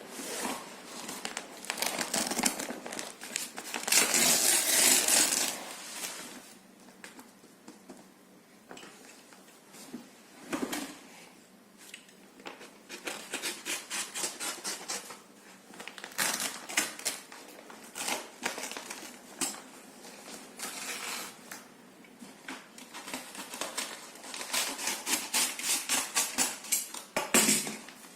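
Handling noises: rustling and runs of small, rapid clicks and clattering, with the loudest rustle about four seconds in.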